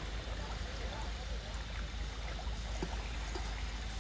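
Small waves lapping gently on a sandy lakeshore, a steady wash of water with a low rumble underneath.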